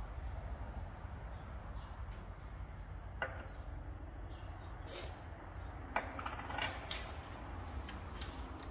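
A few sharp clicks and knocks with some rustling, as of parts being handled on a workbench, over a steady low hum.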